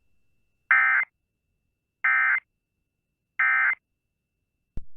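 Emergency Alert System SAME data bursts: three short buzzy digital tone bursts about 1.3 seconds apart, the end-of-message code that closes an EAS alert. A sharp click follows near the end.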